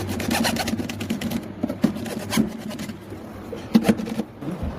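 Wood being worked by hand with a fast run of scraping strokes, followed by a few sharp knocks.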